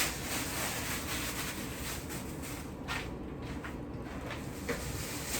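Groceries being handled and put away: a rustle of packaging in the first couple of seconds, then a few light knocks.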